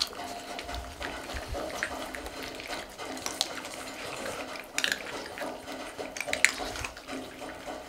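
Several cats and dogs eating dry kibble from ceramic and stainless steel bowls: a steady patter of crunching and small clicks of food and muzzles against the bowls, with a few sharper clinks, the loudest about six and a half seconds in.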